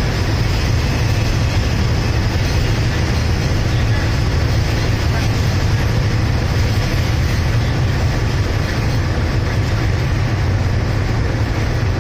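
Diesel locomotive of a standing passenger train idling, a steady low rumble with a hiss over it.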